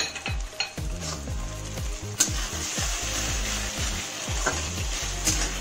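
Chopped spring onions and masala sizzling in a hot metal kadai while a metal spatula stirs and scrapes against the pan. The sizzle grows louder about two seconds in, with a sharp clink of the spatula at that point.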